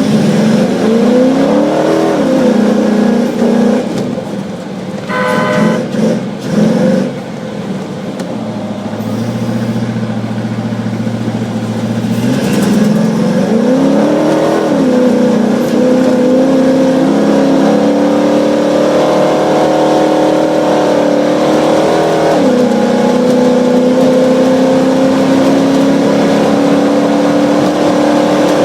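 Off-road race 4x4's engine heard from inside the vehicle. It revs up and eases off, then clatters a few times and drops to a low steady run. It then accelerates and holds steady high revs, with one quick dip and recovery like a gear change.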